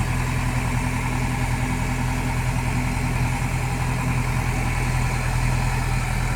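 Heavy diesel engine running steadily at idle, a constant low drone.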